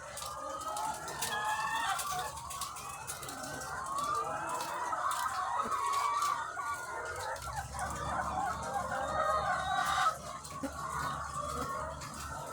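A large flock of egg-laying hens clucking and calling all at once, many overlapping calls with no pause. A low steady hum comes in about halfway through.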